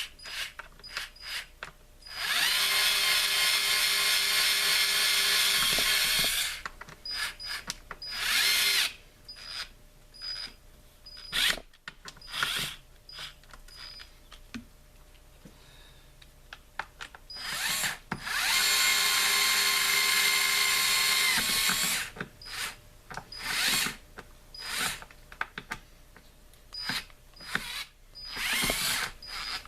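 Small battery-powered mini power tool running in two long, steady bursts of about four seconds each. Between them come shorter bursts and light clicks and taps.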